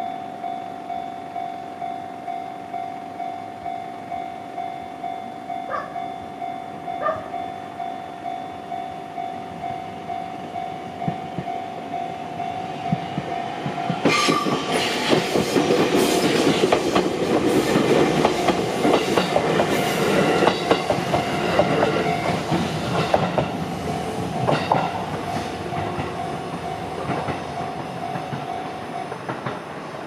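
Japanese railway crossing alarm ringing in a steady, regular clang while an electric train runs over the crossing from about fourteen seconds in, its wheels clattering over the rail joints for about ten seconds before fading. Two brief horn-like tones sound about six and seven seconds in, and the alarm stops near the end as the barriers start to lift.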